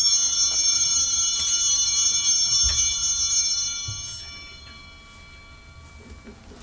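Altar bells shaken at the elevation of the chalice, a bright many-toned ringing that holds for about four seconds and then dies away. The ringing marks the consecration of the wine.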